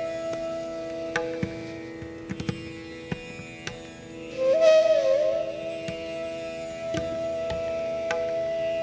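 Hindustani classical bansuri (bamboo flute) holding a long note over a steady tanpura drone, with a few sparse tabla strokes. About halfway through the flute swells and plays a quick ornamented turn before settling back on the held note.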